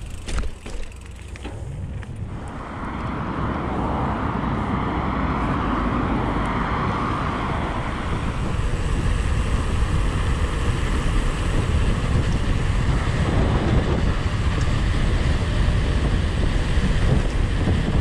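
Wind buffeting the microphone and tyre noise of a bicycle ridden along a road, building to a steady rush after about two seconds, with a few knocks in the first second or so.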